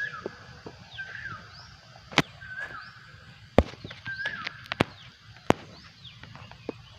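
Asian koel calling in the plantation, a short rising call repeated four times about a second or so apart, with fainter higher bird calls behind. Four sharp clicks, the loudest sounds, come between about two and six seconds in.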